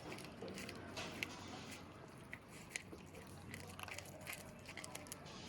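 Kittens chewing and biting into fish, with irregular wet crunches and clicks.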